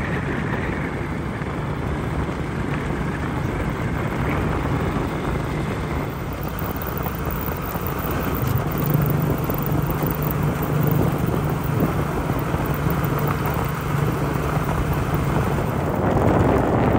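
A steady, low motor drone under wind noise on the microphone, the drone growing a little stronger about eight seconds in.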